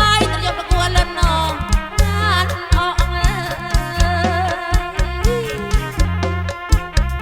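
Live kantrum music through a PA sound system: a regular drum beat and pulsing bass under a gliding, wavering melody line.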